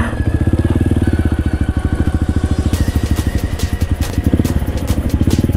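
A Honda XLR200 trail bike's single-cylinder four-stroke engine runs at low speed on a rough dirt track with an even, rapid firing beat. From about halfway in, a rattle of sharp clicks joins it.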